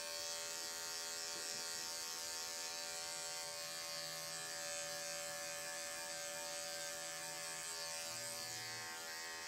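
Andis five-speed electric dog grooming clipper running steadily with an even motor buzz while trimming around a dog's face.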